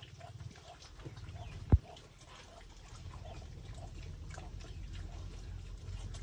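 Pig eating, chewing its food with small repeated sounds about three a second over a low rumble. One sharp knock about two seconds in.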